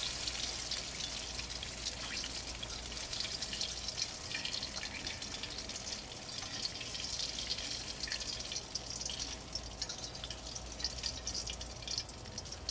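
Panko-breaded lane snapper fillets frying in shallow oil in a skillet: a steady sizzle full of fine crackling pops, a little fainter near the end as the fillets are lifted out of the pan.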